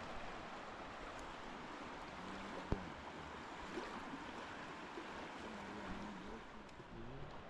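River water rushing steadily, with a single sharp knock a little under three seconds in.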